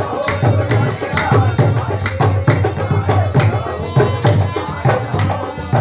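Group devotional singing in qawwali style, carried by rhythmic hand-clapping and a steady drum beat.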